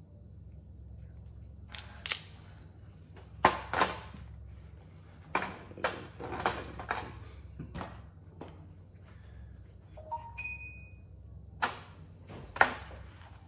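Cooked crab legs being cracked and snapped apart by hand: a series of sharp, irregular shell cracks, loudest about three and a half and twelve and a half seconds in. A brief high ping sounds about ten seconds in.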